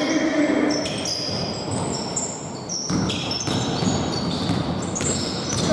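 Indoor basketball game in play: the ball bouncing on the court, with many short, high squeaks of sneakers on the floor.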